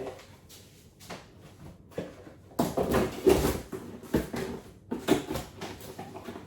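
Kitchen things being handled and put away: a run of knocks and clatters, busiest and loudest from about halfway through.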